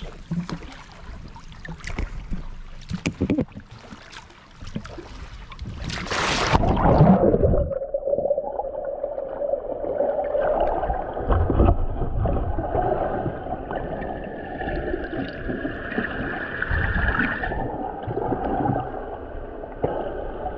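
Sea water splashing and knocking as a snorkeler lowers himself in off harbour rocks, then a loud rush as the camera plunges under about six seconds in. After that the sound turns muffled: underwater gurgling and water movement heard through the submerged camera.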